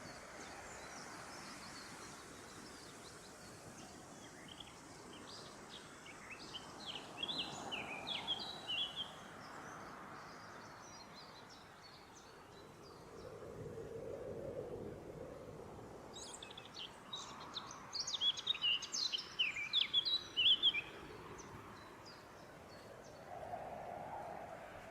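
Forest songbirds singing: two bursts of rapid, high chirping song, one near the middle and a louder one later, over a steady faint background hiss.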